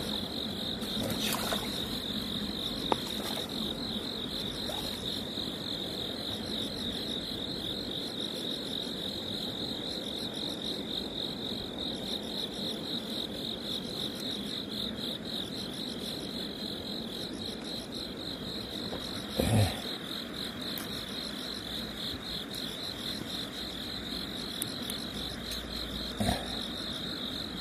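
Crickets chirping in a steady, high, continuous trill. A short low thump comes about nineteen seconds in and a smaller one near the end.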